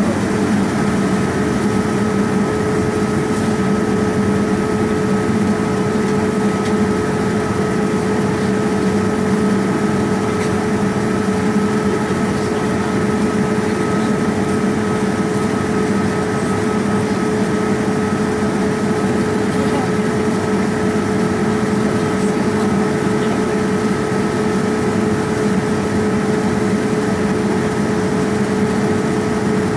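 Boeing 787-9 cabin noise during the climb: a steady rush of airflow with a constant engine hum and two steady tones from its Rolls-Royce Trent 1000 turbofans.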